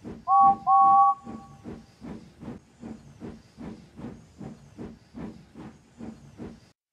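Steam locomotive chuffing steadily at about three puffs a second, with two short toots of a two-tone steam whistle near the start. The chuffing stops just before the end.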